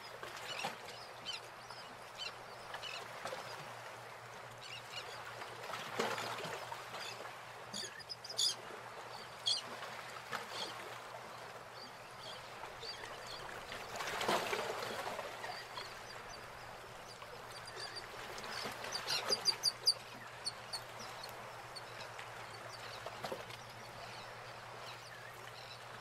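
Wild birds calling over a steady outdoor hiss: scattered short high chirps, with quick runs of high calls about 8 seconds in and again about 19 seconds in. A short rush of noise comes about 14 seconds in.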